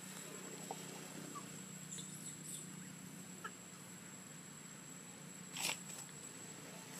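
A few short, faint animal calls over a steady faint hum, with one louder, sharp call about five and a half seconds in.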